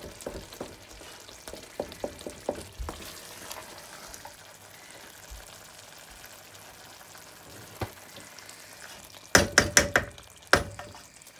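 Wooden spatula stirring a thick chicken curry in a steel pot over a low sizzle, with scattered soft scrapes and clicks. Near the end comes a quick run of loud knocks.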